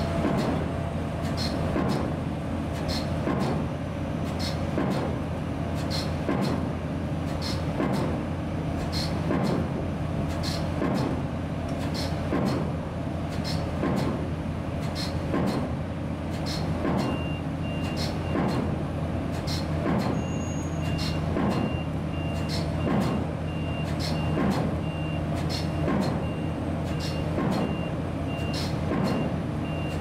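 Bruce SGH-1815 hydraulic impact hammer driving an 800 mm concrete PHC pile, with one heavy blow about every one and a half seconds in a steady rhythm. A steady low engine drone runs under the blows. From about halfway a high beeping repeats alongside.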